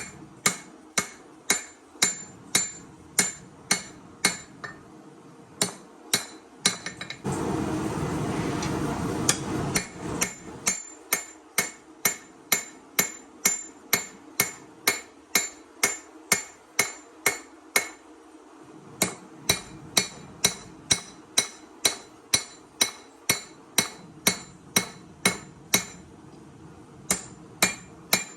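Hammer blows on steel at the anvil while forging a knife blade: sharp ringing strikes about twice a second, with a few short pauses. About seven seconds in, a loud steady rushing noise comes up for about three seconds under the strikes, then stops.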